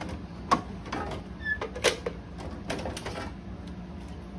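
Scattered light clicks and knocks of hands handling parts and wiring inside a slot machine's metal cabinet, the sharpest about half a second in and just under two seconds in.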